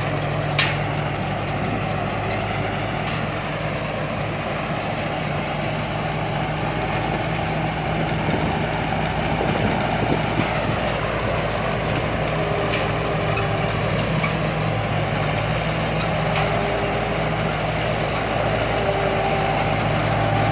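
Combine harvester's diesel engine running steadily, a low even hum with a few sharp clicks over it.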